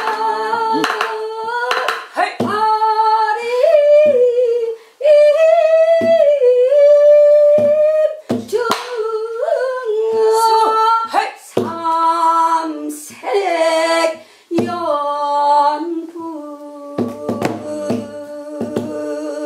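A woman's voice singing Korean traditional folk song solo, holding long notes that bend and waver in pitch. Short sharp knocks, drum strokes or claps keeping the rhythm, come every second or two.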